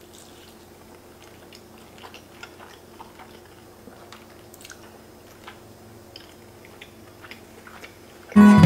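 Faint wet chewing of a mouthful of creamy noodles, with scattered short mouth clicks and smacks. About eight seconds in, loud music starts abruptly.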